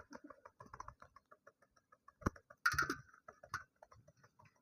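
Domestic pigeons moving about close by: many quick, light, irregular taps and scuffles, with a short, louder flurry about two and a half seconds in.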